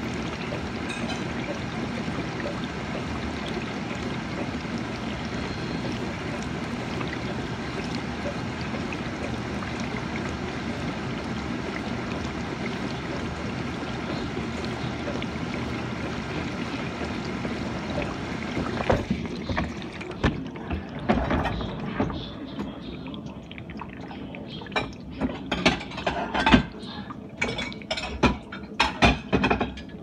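GE dishwasher running its wash, a steady rush of water spray that cuts off abruptly about two-thirds of the way through. Irregular sharp clicks and knocks follow.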